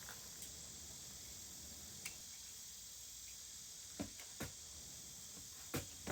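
A few light knocks and clicks, two close together about four seconds in and two more near the end, over a steady high hiss.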